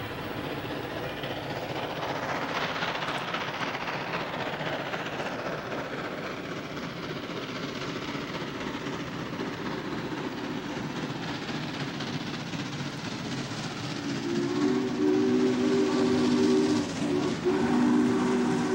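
Norfolk & Western Class J No. 611, a 4-8-4 steam locomotive, working toward the listener with a steady rush of exhaust and running noise. About three-quarters of the way in, its chime whistle sounds two long blasts with a short break between them.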